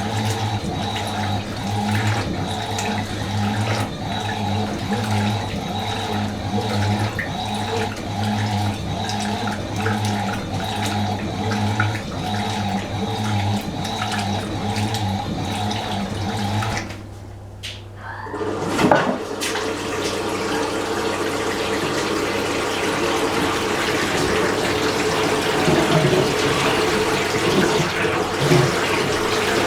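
Fisher & Paykel MW512 washing machine running with water, a steady hum pulsing about one and a half times a second. About 17 seconds in it drops away for a moment, then a noisier rush of water takes over.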